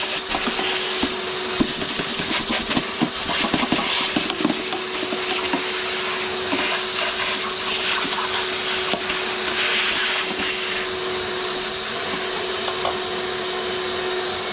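Vacuum cleaner running steadily with a constant motor whine and suction hiss, with scattered clicks and rattles from the nozzle working over the seats.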